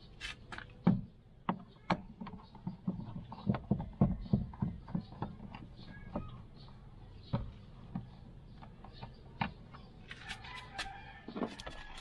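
Screwdriver working out the screws of a car's plastic interior door trim: irregular clicks and knocks of metal on screw heads and plastic, with a quicker flurry of sharp clicks near the end.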